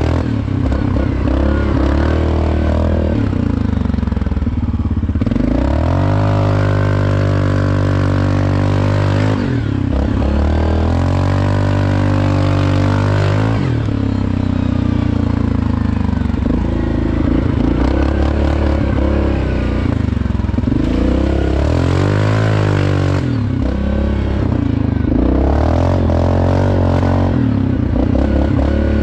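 Yamaha Grizzly 700 ATV's single-cylinder engine running while riding across sand. Its pitch rises and falls again and again as the throttle is opened and closed.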